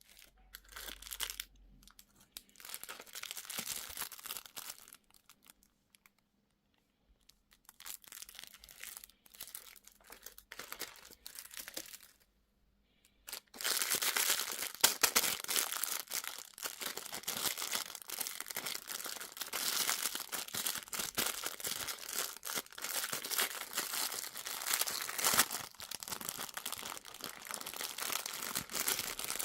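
Plastic packaging crinkling and tearing as it is handled and opened, in short bursts at first, then louder and nonstop from about halfway through.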